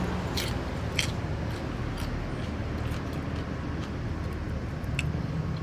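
Someone chewing and eating, with a few sharp mouth clicks, over a steady low rumble.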